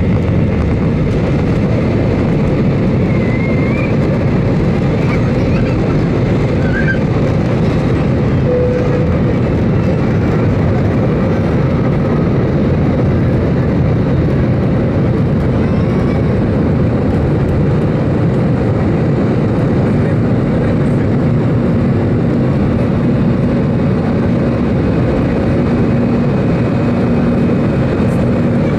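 Steady engine and airflow noise heard inside the passenger cabin of an Airbus A320 in flight, an even, unbroken rush with a low hum.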